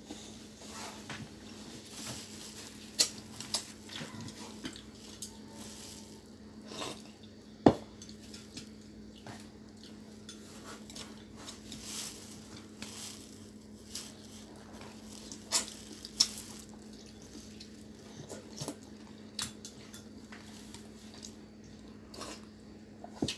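Chopsticks clicking and tapping against bowls during a meal: scattered clinks and knocks at irregular moments, the loudest about eight seconds in, over a steady low hum.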